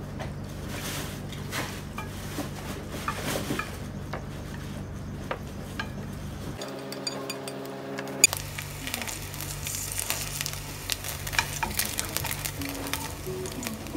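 Chopsticks scraping and clicking as pasta slides out of a nonstick pan onto a ceramic plate; then, about eight seconds in, sliced tempeh sizzling as it fries in a pan, with utensil clicks.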